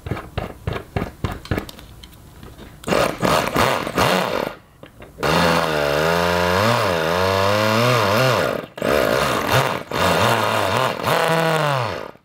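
Toyan 2.4 cc mini Wankel rotary engine being turned over with a handheld electric starter motor to get it running. Rapid ticking pulses at first, then from about five seconds in a loud run whose pitch wavers up and down, with a couple of brief dropouts, stopping abruptly at the end.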